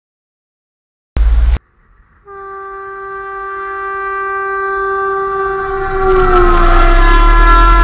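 A short, loud, deep boom about a second in, then a long train horn blast that grows steadily louder. Its pitch drops slightly as it reaches its loudest, with a heavy low rumble of the train underneath.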